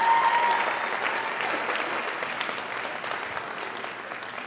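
Audience applauding, the clapping fading away gradually.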